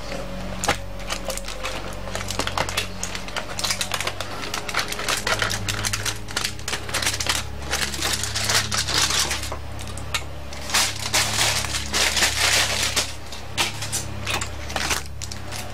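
Aluminium foil crinkling as it is handled and peeled back: a dense crackle with sharp clicks, busiest through the middle and latter part.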